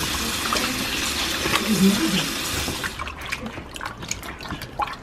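Kitchen faucet running into a plastic tub of raw chicken pieces in a stainless steel sink while hands rub and rinse the chicken. The tap shuts off suddenly about three seconds in, leaving small splashes and drips as the chicken is handled in the water.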